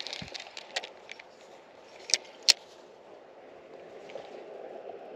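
Baitcasting fishing reel clicking rapidly as line is cranked in, thinning out in the first second, then two sharp clicks about two seconds in, over a faint steady background hiss.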